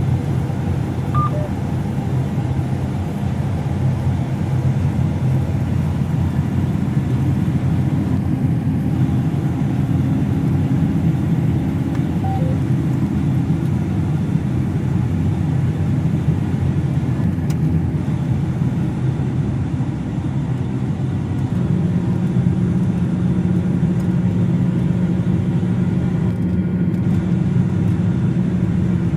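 Combine harvester running steadily at work: a continuous low engine drone, with its hum getting stronger about two-thirds of the way through.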